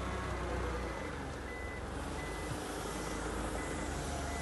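Forklift reversing alarm giving short, evenly spaced high beeps, a little faster than one a second, over the steady low running of the forklift's engine as it backs away with a load.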